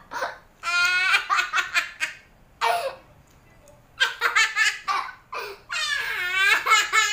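A young child laughing hard in high-pitched bursts, with a pause of about a second near the middle.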